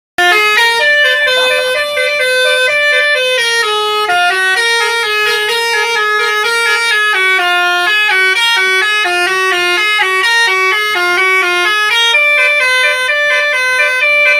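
Bus 'telolet basuri' musical horn playing a fast melody, its notes stepping up and down several times a second in one loud, unbroken run that starts abruptly.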